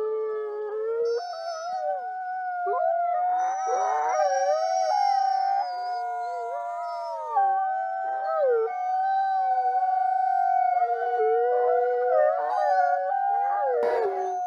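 A pack of wolves howling together: one long, steady howl is held throughout while several other voices rise and fall over it. A short crackle near the end.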